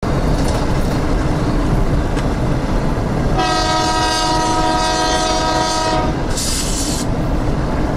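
Diesel locomotives passing close by, engines and wheels rumbling, with one long horn blast of several tones together starting about three seconds in and lasting about two and a half seconds. A brief hiss follows.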